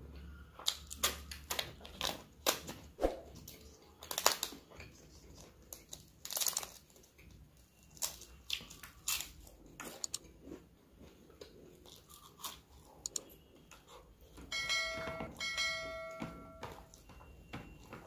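Crisp papad being snapped and crunched between the teeth, with sharp cracks through the first several seconds, then quieter chewing and wet hand-mixing of rice and curry. Near the end two short steady tones sound one after the other.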